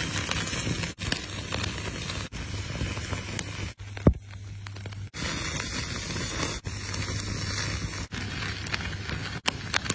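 Open flames burning and crackling up from a pot of hot coarse salt as skewered squid grills over them. The noise briefly drops out several times, and a sharp click about four seconds in is the loudest moment.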